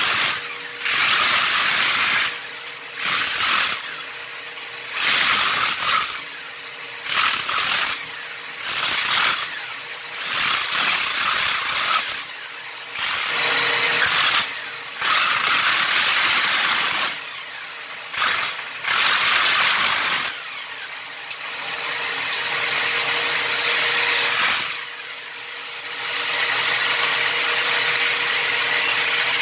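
Handheld electric chipping hammer breaking up bathroom floor tile and mortar under a washbasin to reach a leaking pipe, run in many short bursts of one to two seconds with pauses between. In the last third it runs in two longer, steadier stretches.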